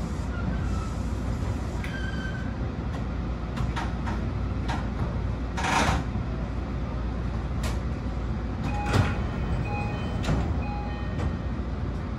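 Steady running rumble of a BEC819 series DENCHA battery electric train, heard from the front of the train, with scattered clicks and a short hiss about six seconds in.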